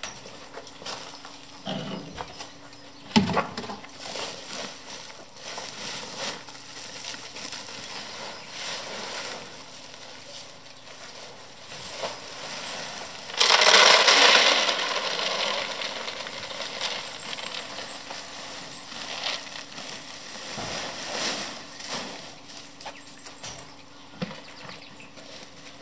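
Cattle feed being handled from plastic sacks into a plastic bucket: scattered knocks and rustling, with one loud rushing pour lasting about a second and a half a little past the middle.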